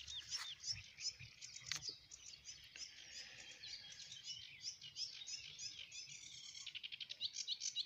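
Songbirds chirping and singing, many short overlapping calls, with rapid trills growing denser in the last second or so. A single sharp click sounds about two seconds in.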